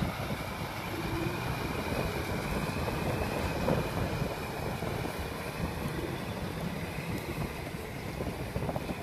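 Kubota M6040SU tractor's diesel engine running steadily under load while its rotary tiller churns through a flooded paddy, growing slightly fainter as the tractor moves away.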